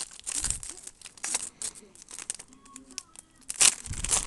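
Trading card packs and cards being handled: rustling and crinkling wrappers with quick, irregular snaps as cards are flipped through.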